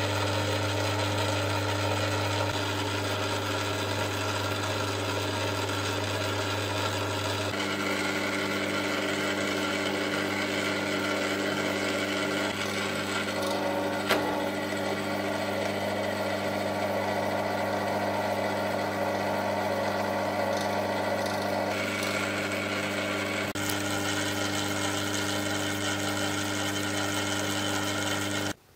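Cowells 90 lathe running steadily under power: a motor and belt-driven headstock hum whose tone shifts about a quarter of the way in and again later. About halfway through a single sharp click comes as the auto traverse is engaged and its adjustable trip is set off.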